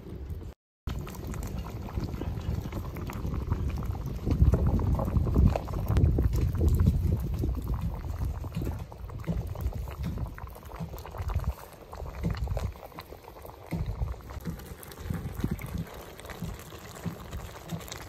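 Hōtō broth of root vegetables and shiitake boiling hard in a large black pot over a wood fire: a steady, dense bubbling, loudest about four to eight seconds in, with a brief cut-out just after the start.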